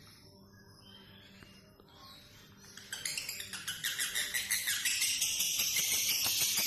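Male lovebird in breeding condition singing: a few faint chirps, then about three seconds in a loud, fast, unbroken twittering chatter that builds and keeps going.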